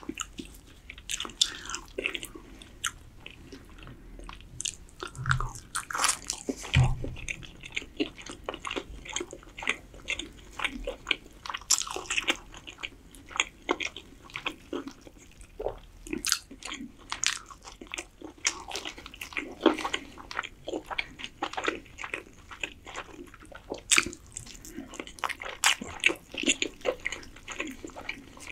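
Close-miked biting and chewing of roast chicken: a dense, irregular run of short mouth clicks and smacks, with a few louder bites.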